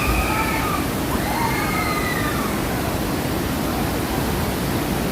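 Steady rush of falling water from waterfalls. A faint distant voice rises and falls over it in the first couple of seconds.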